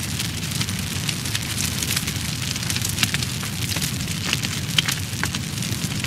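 Fire burning: many irregular crackles and pops over a steady low rumble, with a couple of louder pops about three and five seconds in.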